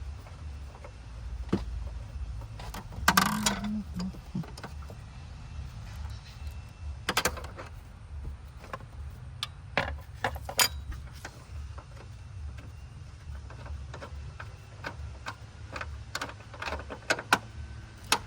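Scattered metallic clinks and knocks of hand tools and parts being worked in a car's engine bay, the loudest clank about three seconds in, over a steady low rumble.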